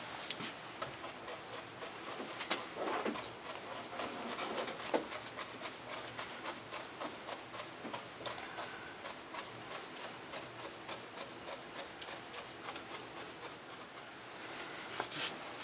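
Large round paintbrush punching paint onto a fascia board in short dabbing strokes: a run of soft, irregular taps and scratchy rubs, several a second.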